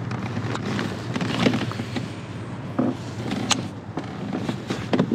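Handling of a baitcasting reel and rod: a few scattered clicks and knocks over a steady low background noise.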